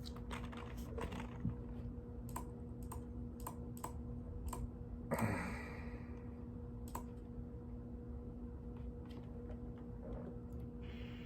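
Typing on a mechanical keyboard: irregular key clicks, a few a second, thinning out after about seven seconds. A brief louder scuffing noise comes about five seconds in, and a steady low electrical hum runs underneath.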